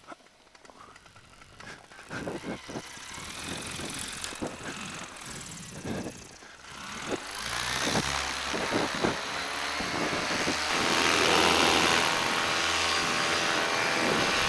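Paramotor engine running: faint scattered knocks at first, then the engine noise swells about halfway through and holds loud and steady.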